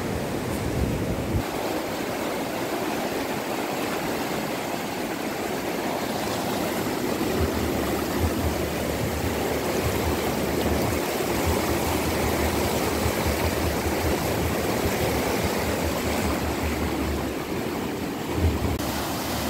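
Floodwater in a swollen river rushing and churning over and below a low bridge, a steady noise of fast-flowing water.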